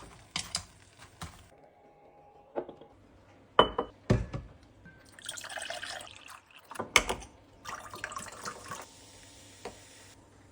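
Liquid being poured into a glass in two stretches, with several sharp clinks and knocks of glass or utensils between them.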